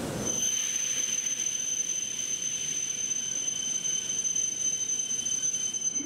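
A steady high-pitched whine sets in sharply just after the start and holds one unchanging pitch with a fainter overtone, over a faint hiss.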